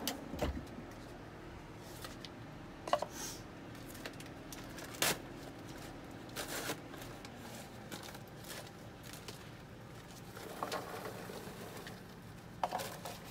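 Kitchen handling noises: a few sharp knocks and clicks as popcorn bowls are taken out and set down, then the paper microwave popcorn bag crinkling and popped popcorn being poured into a paper bowl near the end.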